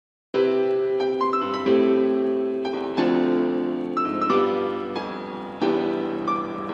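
Piano music begins about a third of a second in: chords struck about every second and a half, with a melody of higher notes over them.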